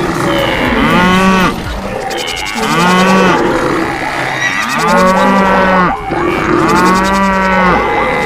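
Cattle mooing: four calls of about a second each, roughly two seconds apart, each rising and then falling in pitch.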